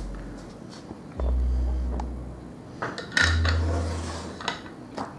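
Small metal fittings and the metal clamp rod of a wooden ham stand being handled during assembly: several light, scattered metallic clinks and taps, over a low hum that comes and goes.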